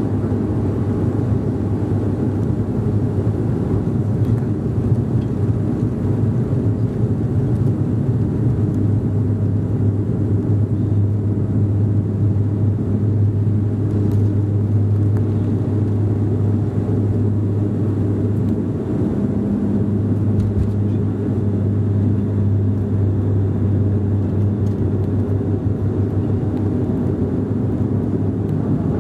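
Bombardier Dash 8-Q400's turboprop engines and propellers at takeoff power, heard inside the cabin: a loud, steady drone with a strong low hum, through the takeoff roll and liftoff.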